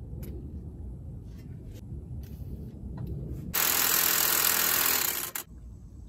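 Aerosol can of penetrating oil spraying onto rusted wheel-hub bolts: one steady hiss of about two seconds, starting a little past halfway, after a low background rumble and a few light clicks.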